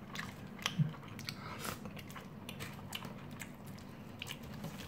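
Quiet eating sounds: a plastic spoon mixing and scraping rice in a styrofoam takeaway box, with chewing and scattered small clicks.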